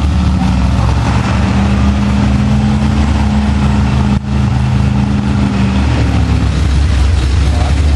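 Lifted mud truck's engine running at steady revs as it crawls through deep mud, with a brief dropout a little past halfway.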